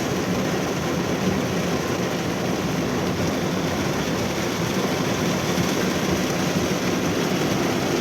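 Heavy rain pouring down over floodwater, a steady, even hiss.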